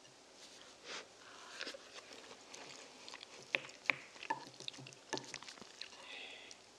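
Close-miked eating sounds: a wooden spoon scooping curry and rice from a ceramic bowl, with soft chewing and mouth clicks. The sounds are scattered short clicks and taps, a few sharper ones about three and a half to four seconds in.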